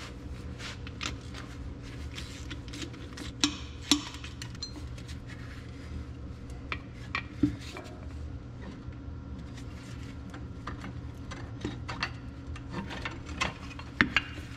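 Metal tools and bolts clinking and tapping while the brake housing cover on an Oliver 1855 tractor's rear axle is unbolted and pulled off, over a steady low hum. There are scattered sharp clinks, the loudest a few seconds in and again near the end.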